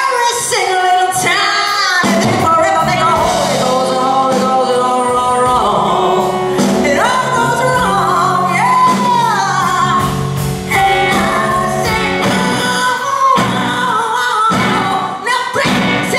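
A woman singing a slow blues song live with a rock band behind her, electric guitar and drums. Her voice holds long notes and slides up into them several times.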